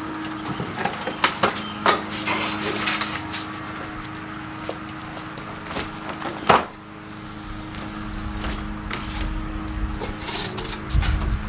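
Grill parts and cardboard and styrofoam packing being handled while unpacking: scattered knocks, clicks and rustling, with one sharper knock about six and a half seconds in.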